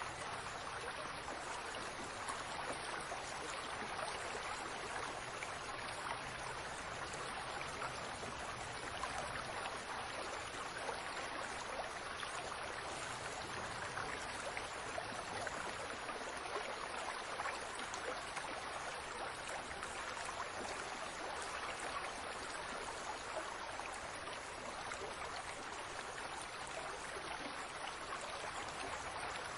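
Water from a fountain falling and splashing steadily, a constant spray of small droplets.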